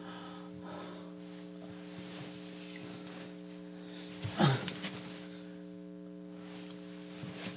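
Air conditioner running with a steady low electrical hum, with one short breathy vocal sound about four and a half seconds in.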